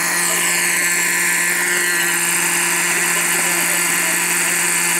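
O.S. MAX-46FX-H two-stroke glow engine of a Hirobo Lama SA-315B scale RC helicopter running on the ground, driving the main and tail rotors. A high whine drops in pitch over the first couple of seconds, then the engine holds a steady speed.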